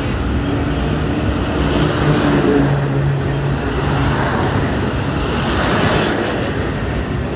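Road traffic noise heard from a moving vehicle: steady tyre and wind noise with an engine hum, and a truck passing close alongside about six seconds in.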